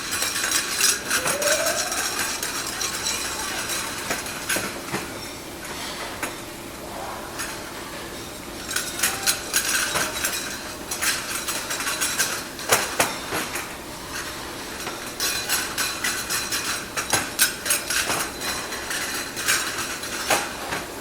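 China (porcelain) ware clinking and being tapped as pieces are handled and checked for faults, in irregular clusters of sharp clinks. A steady hum runs beneath, with a brief rising tone about a second in.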